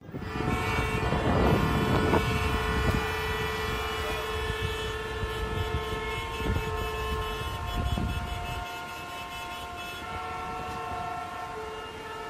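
Several vehicle horns sounding at once in long, held blasts, the mix of pitches changing partway through. A low rumble runs underneath for the first eight and a half seconds or so.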